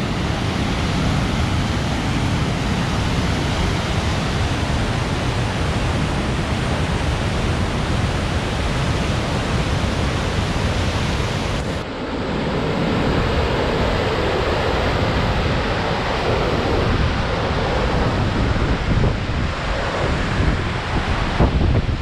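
Waterfall and rapids on the Kanda River running high with snowmelt: a loud, steady rush of white water. About halfway through the sound changes abruptly, with less hiss and a fuller middle, then holds steady again.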